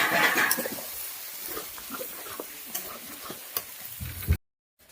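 Goat mutton and ground masala sizzling as they fry in a pot and are stirred, with scattered small scraping clicks. The sound slowly fades and cuts off suddenly near the end.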